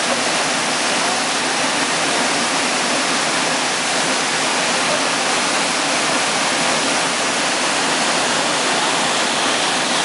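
Magura waterfall rushing close by: a loud, steady hiss of falling water that does not let up.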